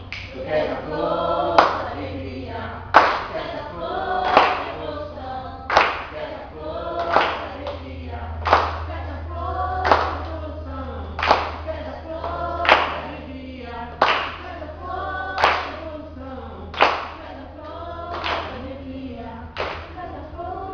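Youth choir singing together, with hand claps keeping time, about one every second and a half.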